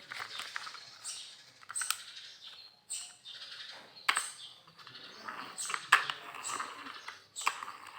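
Plastic toy vehicles being handled, with sharp clacks about four times among softer scraping and rattling.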